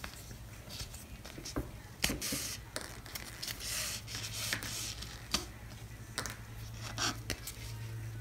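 Ribbon rustling and thread scraping as a needle is worked through folded ribbon on a plastic bow template and the thread is pulled through: scattered soft rustles and small clicks.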